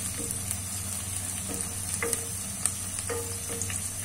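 Sliced onions sizzling in oil in a metal karahi as they turn brown, stirred with a wooden spoon that scrapes and knocks against the pan a few times.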